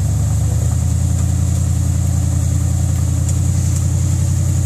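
Rock-crawler buggy's engine running steadily at a low, even pitch as the buggy crawls up a rock ledge.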